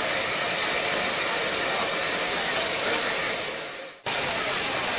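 Steam hissing loudly and steadily from a standing Beyer Peacock steam locomotive. The hiss fades away about three and a half seconds in, then comes straight back in at full level.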